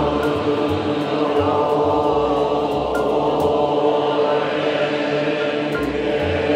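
Nichiren Shu Buddhist priests chanting in unison, many voices held on a steady pitch.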